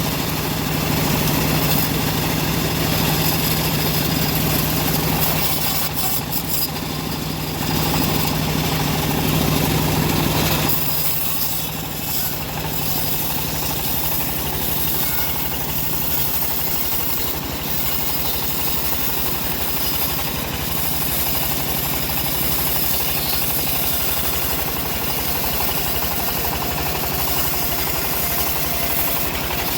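Sawmill band saw running steadily while slicing wood into boards, its machine hum continuous; about eleven seconds in the hum changes pitch and settles into a rougher, lower drone.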